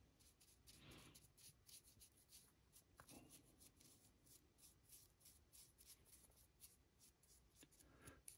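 Faint, quick scratching of a large paintbrush's bristles stroking paint onto a 3D-printed figure, about four strokes a second, with a single small click about three seconds in.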